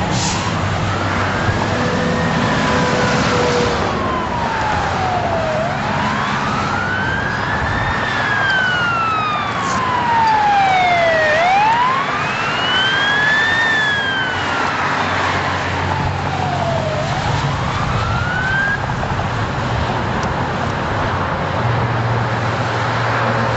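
Emergency vehicle siren wailing, its pitch sweeping slowly up and down over a few seconds per cycle, stopping a few seconds before the end. A steady low engine rumble and traffic noise run underneath.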